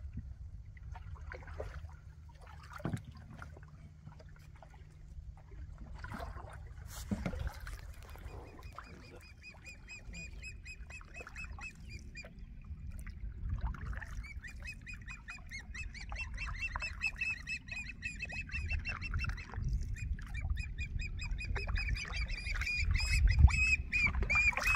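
Eagles calling: repeated bursts of high chittering notes, starting about eight seconds in and getting louder toward the end, over a low rumble of wind on the microphone.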